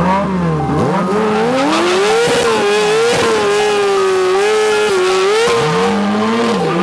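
A vehicle engine revving hard. Its pitch climbs over the first two seconds, holds high with brief dips, then drops and rises again near the end.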